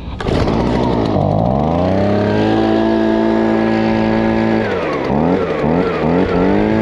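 Gas-powered handheld leaf blower running: the engine climbs to full throttle and holds there steadily, then about two-thirds through the throttle is eased off and blipped up and down several times.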